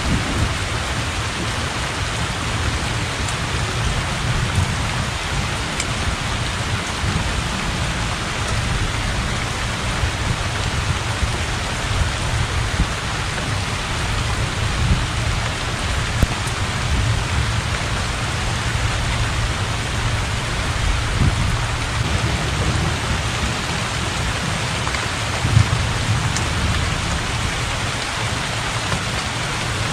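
Heavy rain falling steadily onto open, flooded water, a dense even hiss. Underneath runs a low rumble of thunder that swells now and then, most strongly near the end.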